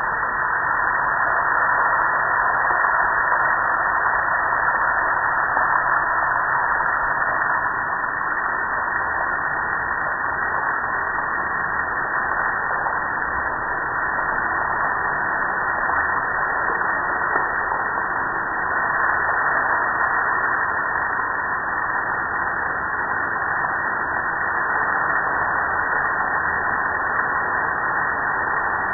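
Water spraying and splashing steadily onto the metal lid and panels of a gas grill, a constant rushing noise.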